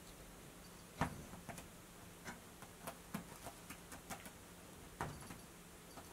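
Scattered small clicks and ticks over quiet room tone, with a sharper knock about a second in and another about five seconds in.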